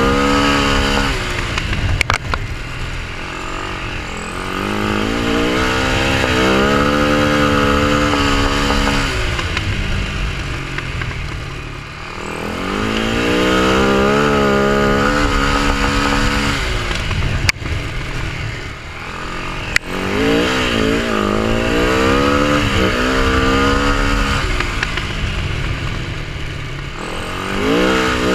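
Husaberg 650 supermoto's single-cylinder four-stroke engine heard from on board, revving up along the straights and dropping away as the throttle closes for the turns, four times over. A few sharp clicks come through along with it.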